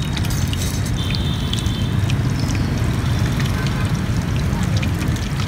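Hot oil sizzling and crackling around two sticky-rice-coated chicken legs deep-frying in a wok, over a steady low rumble.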